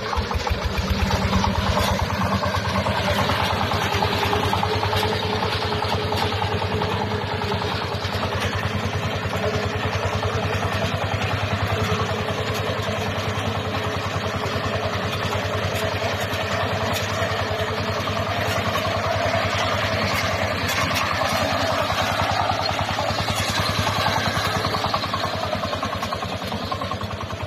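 Engine of a small multi-crop swather harvester running steadily at an even speed.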